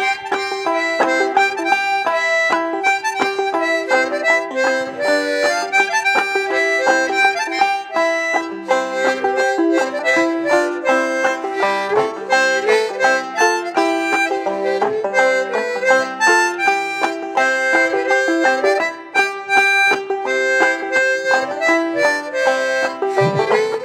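Banjo played clawhammer style, with a harmonica in a neck rack playing an old-time tune over it: a steady run of plucked banjo notes under the harmonica's held and chugging notes.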